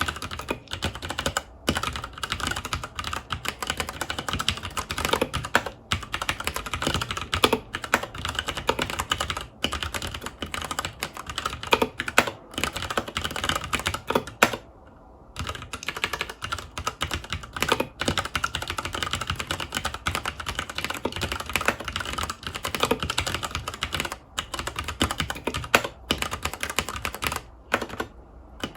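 Filco Majestouch 2 Hakua tenkeyless mechanical keyboard with tactile Cherry MX Brown switches being typed on quickly and continuously: a dense run of keystrokes, with a brief pause about halfway through and another near the end.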